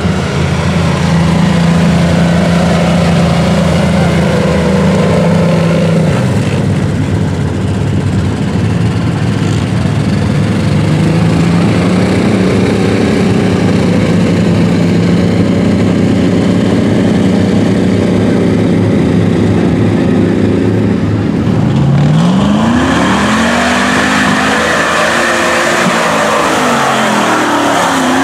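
Lifted Suzuki Samurai's engine running under load in deep mud, its note holding, dipping and climbing again as the tires churn. Near the end a lifted full-size truck's engine revs sharply upward, with a rush of mud and water thrown by its spinning tires.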